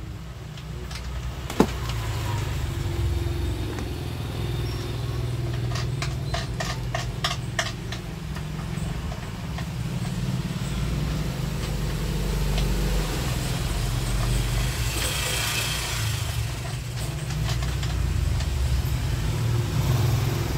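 Shoulder strap being clipped onto a portable speaker: one sharp click about a second and a half in, a quick run of about eight clicks around the middle, and a rustle of the strap later on, over a steady low rumble.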